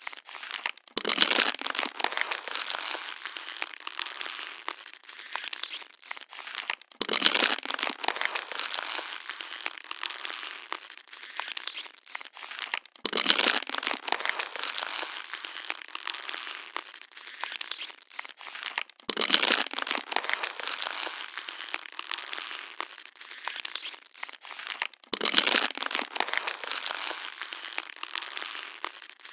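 Plastic water bottle being crushed, a dense crinkling and crackling. It swells about every six seconds, five times, in a repeating pattern.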